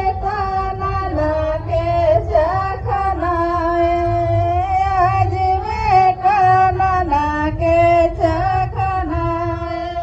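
A woman singing into a handheld microphone, amplified, in long held notes with a slight waver, over a steady low rumble.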